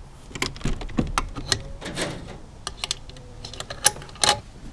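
Irregular clicks and knocks as the hinged lid of a wooden nursery chicken coop, roofed with corrugated panels, is lowered and its small latch fastened; the two sharpest knocks come near the end.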